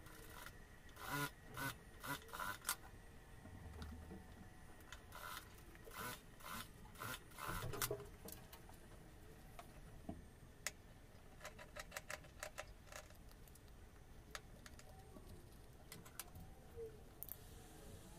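Light handling sounds at a sewing machine: corduroy cap panels rustling, with scattered clicks and taps. The clicks come in quick clusters during the first half and turn sparse later, with a short hiss shortly before the end.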